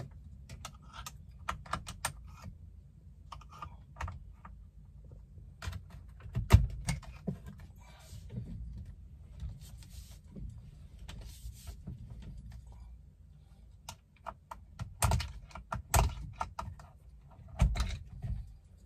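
Irregular plastic clicks and knocks of a flat-blade screwdriver working at the back of a VW Polo steering wheel to push down the spring-loaded clips that hold the driver's airbag. There is a louder knock about six seconds in and several more in the last few seconds, over a faint low rumble.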